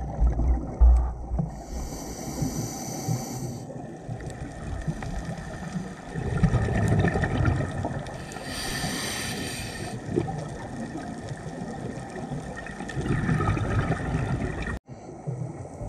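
A scuba diver breathing through a regulator underwater: two hissing inhalations, each about two seconds long, alternate with low bubbling exhalations. The sound drops out for a moment near the end.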